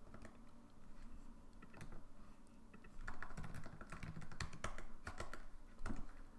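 Typing on a computer keyboard: scattered key clicks, sparse at first and coming more often from about three seconds in.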